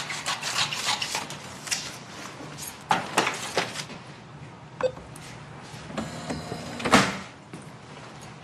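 Soft knocks, clicks and rustles of people moving about and handling things, with a louder knock about seven seconds in.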